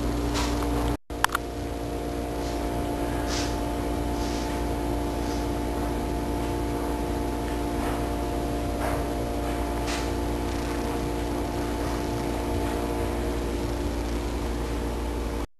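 A steady mechanical hum, several steady tones over a low rumble, with a few faint clicks. The sound cuts out completely for a moment about a second in and again at the end.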